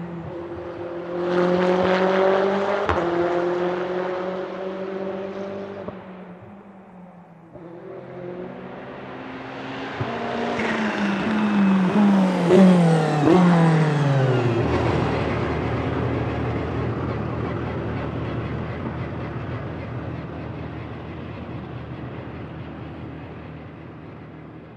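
Aston Martin Vantage GTE's twin-turbo V8 accelerating past about two seconds in, then fading away. After a cut it comes back loud and its note drops in steps through downshifts under braking, with a few sharp cracks. It then settles into a steady low drone that slowly fades as the car goes away.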